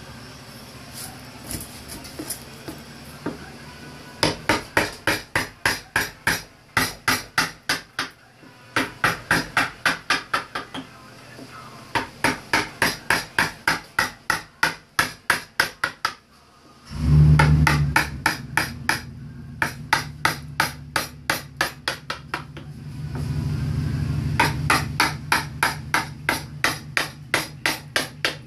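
Wooden mallet striking a carving gouge into a wooden relief panel: quick runs of sharp taps, about four a second, broken by short pauses. A low hum comes in about halfway through, swells and fades, and returns near the end.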